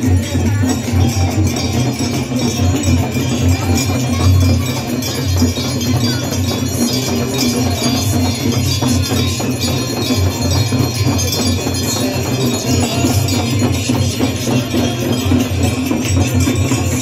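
Ganga Aarti ceremony: many hand bells ringing continuously over loud amplified devotional music.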